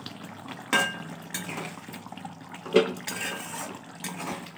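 A spatula stirring chicken curry in an aluminium kadai, scraping through the gravy and knocking against the pan about three times, the first knock ringing briefly.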